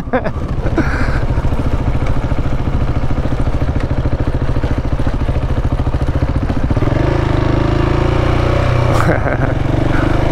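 KTM 690 single-cylinder motorcycle engine running at low revs while the bike coasts, with a fast even pulse of firing strokes under wind noise. About seven seconds in the engine note grows steadier and a little louder as it comes back under power.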